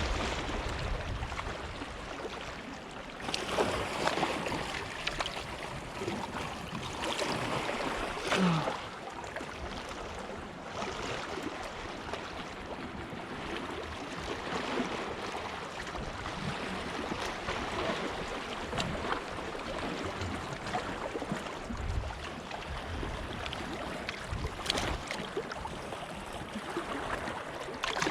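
Sea waves washing against the shore rocks with wind on the microphone: a steady rushing noise, swelling louder a few times, around four and eight seconds in and again near the end.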